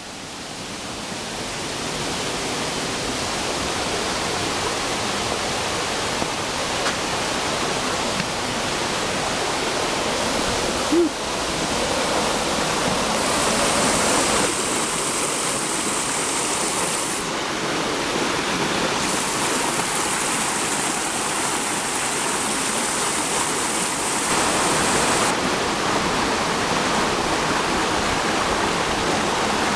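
Rushing mountain stream tumbling over boulders: a steady rush that grows louder over the first couple of seconds. One brief knock about eleven seconds in.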